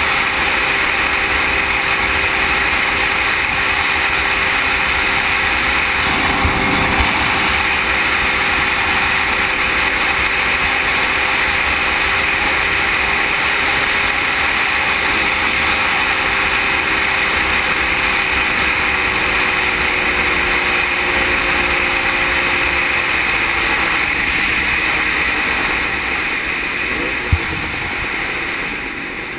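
The water-cooled two-stroke triple engine of a 1974 Suzuki GT750 running steadily, heavily buried under wind noise on the microphone. Near the end the engine note sags a little and the sound drops in level, with one sharp click shortly before the end.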